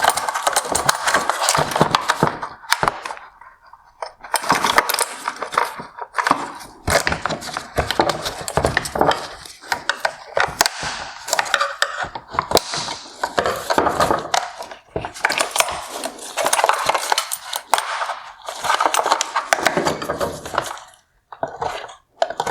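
Plastic headlight housing and wiring harness being handled: irregular clicking, scraping and rattling as the harness is worked out of its connectors and pulled free of the housing.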